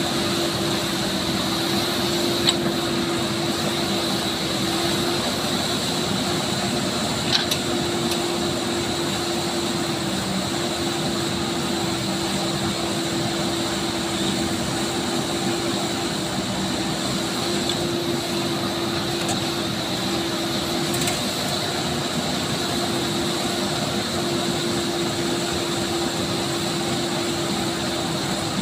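JCB 3DX backhoe loader's diesel engine running steadily as the backhoe arm digs soil and loads it into a tractor trolley, with a sharp knock about two and a half seconds in and another about seven and a half seconds in.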